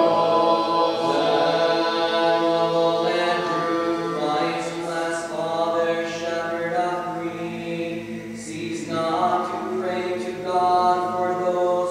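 Voices chanting unaccompanied Orthodox liturgical chant, sustained sung phrases that change note syllable by syllable.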